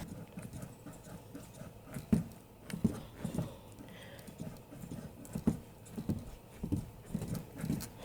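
Footsteps knocking on wooden porch deck boards: about ten dull, unevenly spaced knocks.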